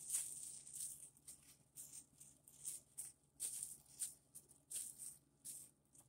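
Short, hissy shaking or rustling sounds, repeated about twice a second in an uneven rhythm.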